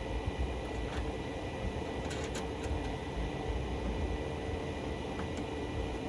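Steady mechanical hum of machines running in a workshop, with a few faint clicks about one, two and five seconds in.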